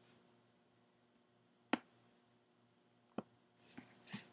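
A few isolated clicks from a computer keyboard and mouse: two sharp ones about a second and a half apart, with fainter ticks near the end.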